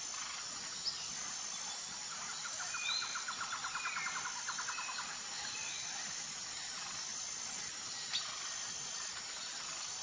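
Outdoor birdsong: short chirps scattered throughout, with a rapid trilling call from about two to five seconds in, over a faint steady background of insects.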